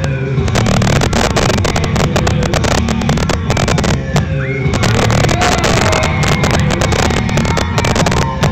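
Loud music playing through a sound system in a large gym hall.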